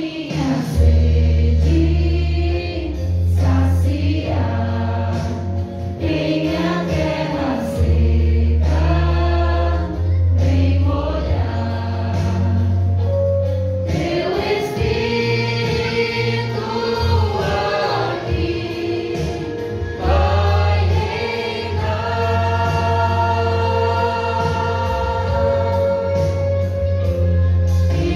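Mixed church choir of men and women singing a hymn together, over sustained low bass notes from an accompaniment.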